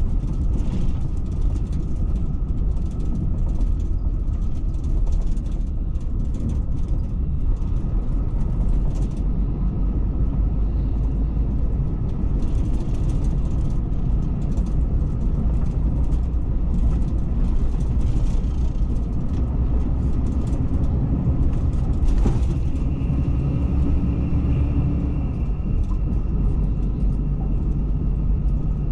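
Intercity coach under way, heard from inside the passenger cabin: a steady low rumble of engine and tyres on the road, with light clicks and rattles. A faint high whine joins about two thirds of the way through.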